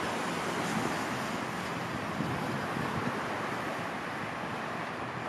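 Steady rush of road traffic and wind, with the faint low hum of a diesel locomotive approaching along the track.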